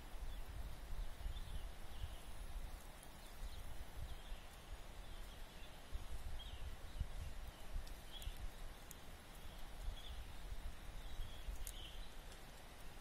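Forest ambience: a short, high chirp repeats irregularly about once a second over a low, uneven rumble on the microphone.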